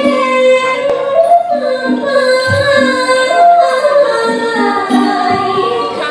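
A solo singer's voice with musical accompaniment, singing a melody with long held, wavering notes over repeated lower accompanying notes.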